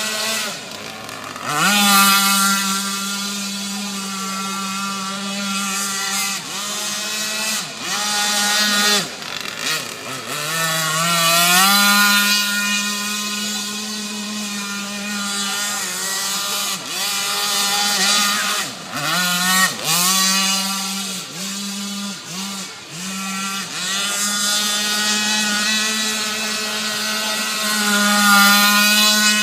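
Small engine of a radio-controlled model boat running hard on the water, throttled down and back up about ten seconds in, with several quick throttle dips in the second half.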